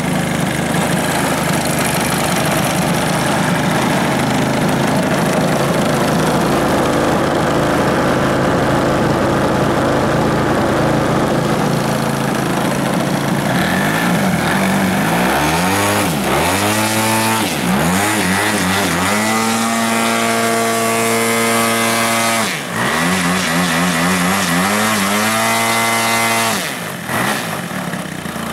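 VVRC 40cc twin-cylinder gas engine on a large model aerobatic plane, exhausting through a 2-into-1 header into a canister muffler, running on the ground; the engine is new and still being broken in. It runs steadily for about the first half, then is revved up and down several times, held at steady speeds and throttled back near the end.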